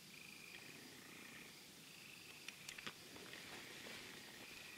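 Faint night chorus of calling insects or frogs: short high trills about half a second long, repeating roughly once a second, with a few soft clicks about two and a half seconds in.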